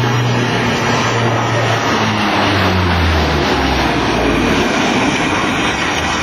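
Four-engine C-130T Hercules turboprop making a low pass, its engines and propellers droning loudly; the pitch drops about three seconds in as the aircraft goes by.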